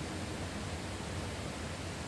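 Steady countryside outdoor ambience: an even, unbroken hiss with a low rumble underneath and no distinct events.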